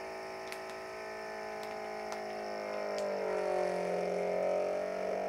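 Anova vacuum sealer's pump motor running a vacuum-and-seal cycle: a steady hum that grows louder and drops in pitch about three seconds in as the air is drawn out and the bag pulls tight. A few faint clicks sound over it.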